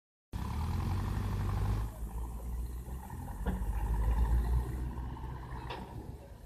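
Diesel engines of tractors and backhoe loaders running at a distance, a steady low rumble, with two brief clicks partway through.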